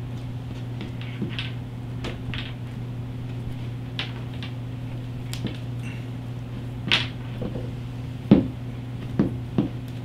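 A roll of tape being pulled off and wrapped around a wiring harness: short, scattered crackling rips and light handling knocks, the loudest a little past halfway, over a steady low hum.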